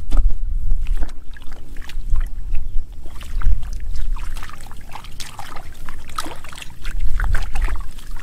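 Hands splashing and sloshing in shallow muddy water, groping through the mud and weed roots for catfish: irregular small splashes and squelches over a steady low rumble.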